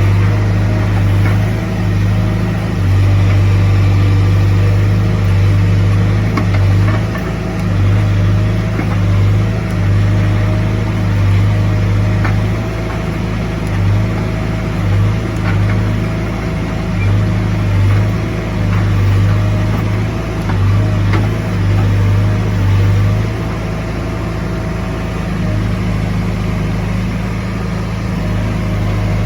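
Diesel engine of a piece of heavy earthmoving equipment running steadily, its low hum dipping and coming back every second or so, with a faint wavering whine above it.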